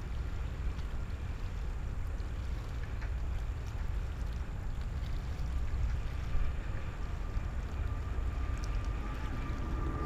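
Boeing 777-200 airliner taking off at full thrust, heard from a distance as a steady low rumble. Near the end a faint engine whine comes in and the level begins to rise as the climbing jet draws closer.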